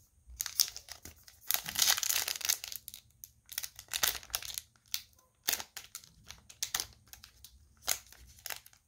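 Plastic wrapper of a hockey card pack crinkling and tearing as it is opened, in irregular bursts, loudest about two seconds in.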